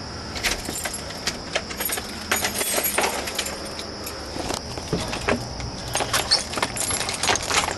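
Keys jangling, with many irregular light clinks and clicks, over a steady high-pitched hiss.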